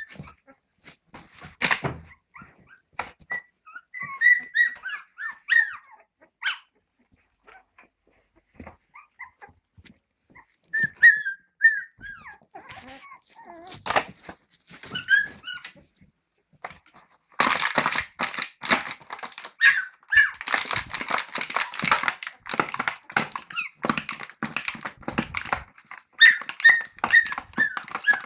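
Seventeen-day-old Australian Cattle Dog puppies squealing and whimpering in short high calls. Sharp clicks are scattered through, and a dense clattering noise runs for about eight seconds in the second half.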